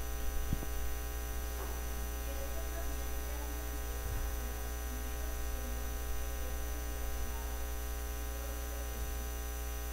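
Steady electrical mains hum from the sound system, with a faint distant voice underneath.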